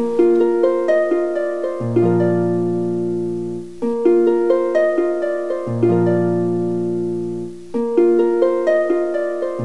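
Background music: a gentle plucked-string melody of quick, decaying notes over low bass notes that change about every two seconds.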